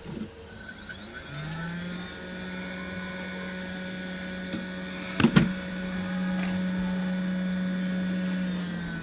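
A small electric fan motor spins up, runs steadily for about seven seconds and winds down, with one sharp clack about five seconds in.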